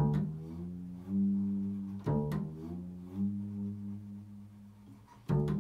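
Improvised music on a low-pitched string instrument: three low notes plucked about two and three seconds apart, each ringing on and slowly fading into the next.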